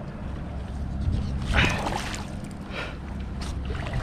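Water splashing and sloshing beside a kayak as a hooked sheepshead is brought to the surface, in a few short splashy bursts over a low steady rumble.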